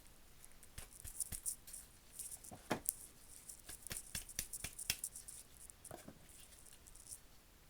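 Light, irregular metal clicks and scrapes of flush-cut pliers gripping and working at a small steel pawl post in a ratchet head.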